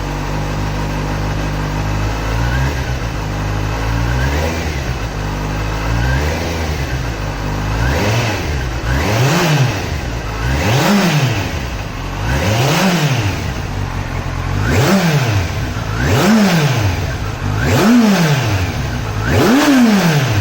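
Motorcycle engine and exhaust idling, then revved in repeated throttle blips. The pitch rises and falls sharply every second and a half to two seconds, and the later revs climb higher.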